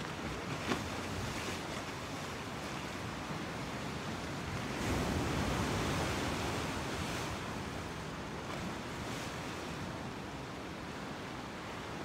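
Pacific Ocean waves washing in a steady hiss, with one wave swelling louder about five seconds in and fading over about two seconds. A brief tap comes less than a second in.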